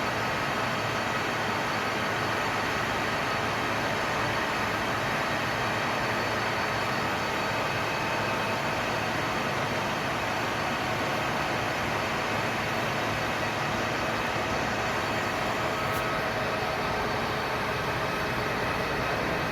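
Gas welding torch flame burning with a steady, unbroken hiss.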